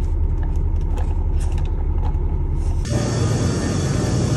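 Low rumble inside a car's cabin. About three seconds in it cuts abruptly to a different steady hum with hiss.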